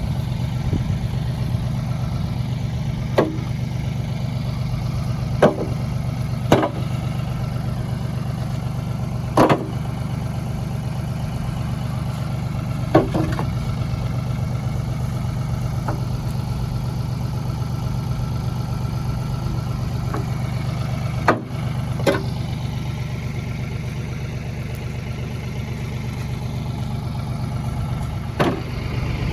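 An engine idling steadily, with sharp knocks every few seconds as rocks are thrown into a bucket.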